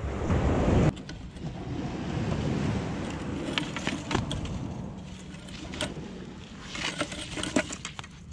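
Rustling and scattered light clicks of a landing net being handled to free a freshly caught small Chinook salmon, the mesh and frame knocking against rock. A heavy low rumble of handling noise or wind comes in the first second.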